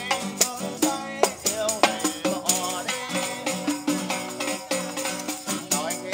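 Live acoustic guitar strummed with a tambourine shaken and struck in steady rhythm, and a man singing over them.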